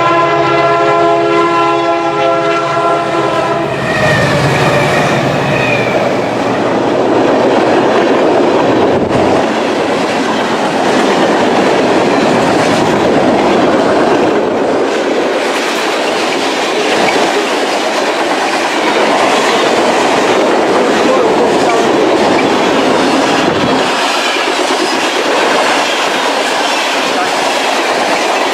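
A CN diesel freight locomotive's horn sounding for about the first four seconds, then the long mixed freight train rushing past at speed, its wheels clattering steadily on the rails.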